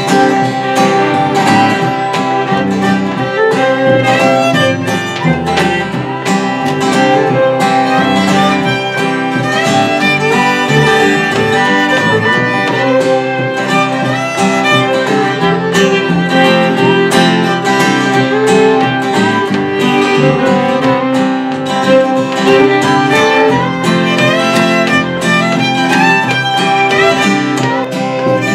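Bluegrass string band playing an instrumental passage with no singing: bowed fiddle, strummed acoustic guitar and plucked upright bass.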